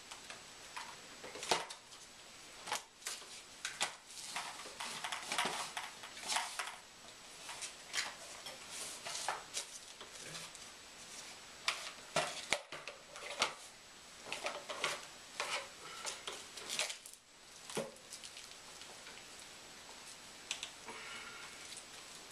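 Hard plastic KFO leg braces and their straps being handled and fitted on the legs: irregular clicks, knocks and short rustles.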